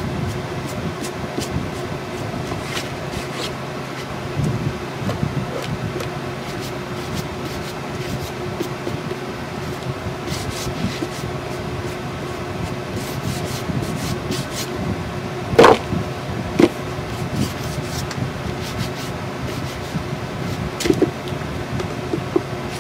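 Permanent ink pad rubbed and dabbed along a painted chipboard box, soft scuffing with a few sharp knocks, the loudest about two-thirds of the way through, over a steady background hum.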